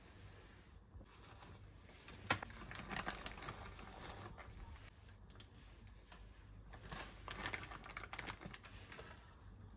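A sharp click a couple of seconds in, then two spells of light crinkling, rustling and small clicks, as of things being handled.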